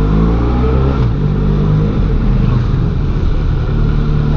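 Benelli Leoncino 500's parallel-twin engine running while the motorcycle is ridden. Its pitch shifts during the first second, then holds fairly steady.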